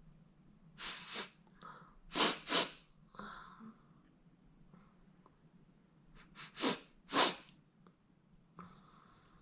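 A young woman sneezing again and again in a chhinkni-induced sneezing fit. The sneezes come in two bunches about five seconds apart, the loudest a pair about two seconds in and another about seven seconds in, with short breaths between.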